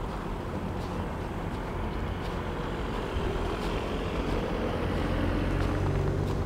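A motor vehicle's engine running with a low hum and tyre noise, growing louder as it comes closer.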